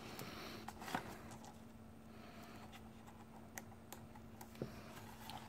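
Faint small clicks and handling noise as a drone battery and its plug are fitted into the quadcopter's battery bay, over a faint steady hum.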